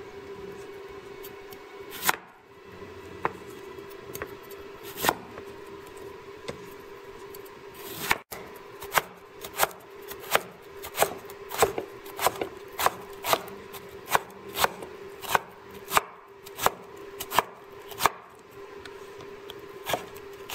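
Cleaver chopping cucumber on a wooden cutting board: a few scattered knocks at first, then from about eight seconds in a steady run of chops, roughly one and a half a second. A faint steady hum runs underneath.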